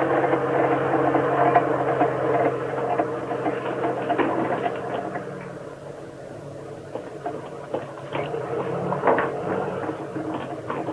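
A tank's engine running with a steady low drone, which fades somewhat about halfway through and then comes back up, with scattered knocks and clanks.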